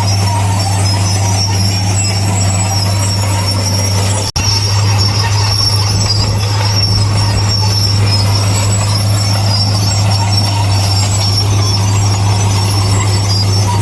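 Heavy earthmoving machine's diesel engine running with a steady low drone, with high-pitched metallic squealing over it. The sound drops out for an instant about four seconds in.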